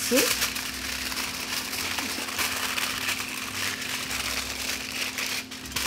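Aluminium foil crinkling as it is folded and pressed by hand around a small packet, a continuous rustle of fine crackles.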